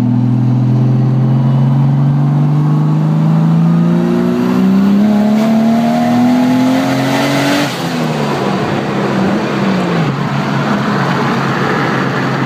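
Turbocharged Nissan RB30 straight-six in an S30 Datsun Z, with a Garrett GTX3582R turbo on a T3 0.82 hot side, heard from inside the cabin as it pulls hard. Its pitch climbs steadily for about seven seconds, then drops suddenly with a brief rush of hiss. It falls away over the next two seconds and settles into steady running.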